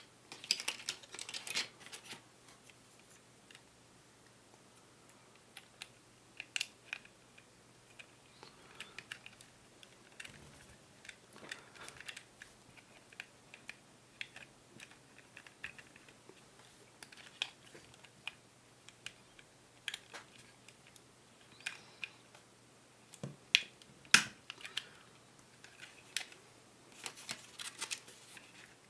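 Scattered clicks, taps and light rattles of small plastic and metal parts being handled while a Umarex Walther PPK/S spring airsoft pistol is taken apart. There is a cluster of rattling at the start and one sharp, louder click a few seconds before the end.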